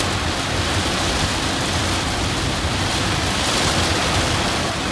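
Heavy rain pelting a car's windshield and roof, heard from inside the car: a steady hiss with a low rumble beneath.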